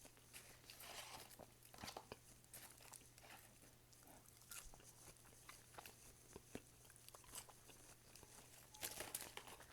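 Faint chewing and eating sounds: scattered soft clicks, crunches and crinkles, a little busier about nine seconds in, over a low steady hum.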